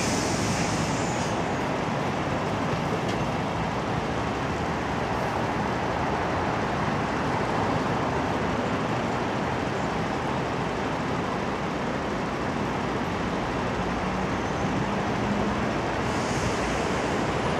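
Steady road traffic noise from a queue of lorries and cars creeping and idling, including a MAN eight-wheel dropside crane lorry's diesel engine idling close by. A short hiss comes near the start and again near the end.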